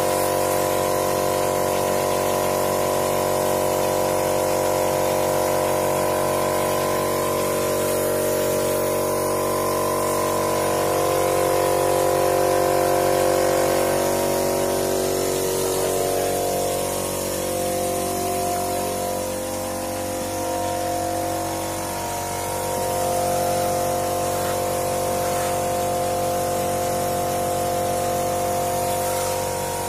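Plaster-spraying apparatus running: a steady machine hum under the hiss of a hopper spray gun blowing travertine-texture plaster onto a wall. The hum's pitch wavers and dips slightly around the middle.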